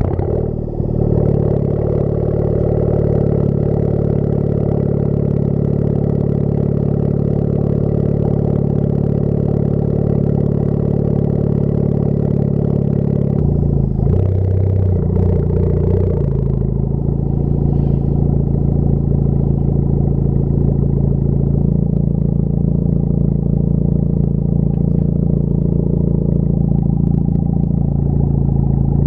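Honda Civic Type R FK8's turbocharged 2.0-litre four-cylinder, breathing through a Tomei full-titanium muffler, cruising with a steady exhaust drone, which the driver rates about a 6 out of 10. About halfway through, the note wavers and shifts in pitch, then settles into a steady drone again.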